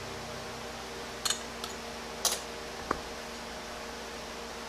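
A few light clicks and taps, about four within a second and a half near the middle, as a new piston is pushed by hand down into a 68RFE transmission input drum, its lip being eased into the bore. A steady background hum runs underneath.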